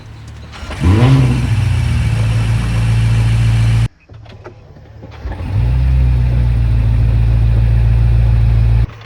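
BMW M5's twin-turbo V8 starting up with a brief flare of revs, then settling into a steady idle that cuts off abruptly. Then the engine rises again into a steady idle, which also ends suddenly.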